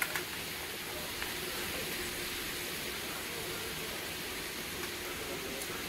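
Steady sizzling hiss of turkey smoked sausage, onions and bell peppers frying in a steel pan under a heap of fresh cabbage, with a couple of faint ticks.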